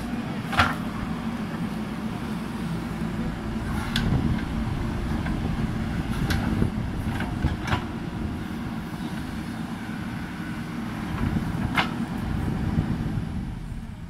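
JCB backhoe loader's diesel engine running steadily under digging load while the backhoe arm works the bucket through soil, with a handful of sharp knocks from the arm and bucket.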